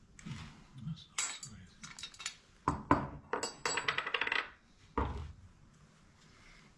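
Metal tools and parts clinking and clattering as they are handled and set down, a few ringing strikes, then a busy run of clinks in the middle and a duller knock near the end.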